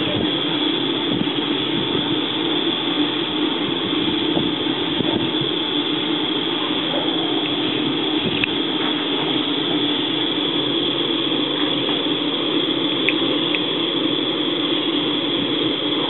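Air compressor running steadily, forcing air into a wood-fired aluminum-melting furnace, a constant mechanical drone over the rush of the air blast. A few faint clinks come through the drone.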